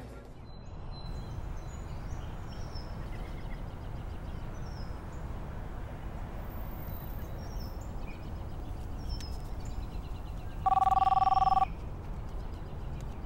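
A telephone ringing tone sounds once, a steady two-note ring lasting about a second, as a phone call rings through. It comes near the end over a steady outdoor background hum with faint high chirps.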